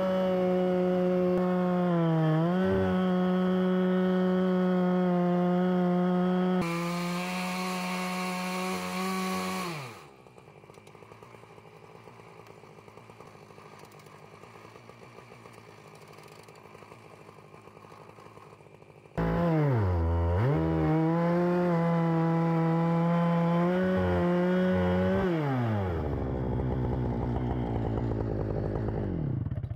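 Chainsaw mounted in a winch-pulled chainsaw mill running at full throttle as it rips a cedar log lengthwise into a plank, its pitch dipping briefly under load. For several seconds in the middle it is much fainter, then the full-throttle saw returns and near the end drops off throttle to an uneven idle as the cut finishes.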